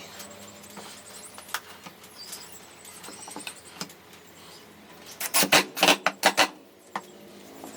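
Scattered light clicks and taps, then a quick run of about six loud, sharp knocks a little past halfway through.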